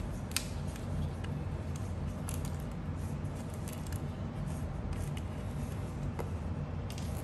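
Scattered light metallic clicks of a screwdriver and hex key working a small screw on an electric scooter's metal deck, over a steady low hum.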